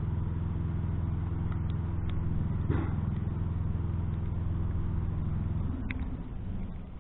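Old Sears Craftsman garden tractor engine running steadily close by, with a brief clank about three seconds in. The engine cuts off abruptly near the end.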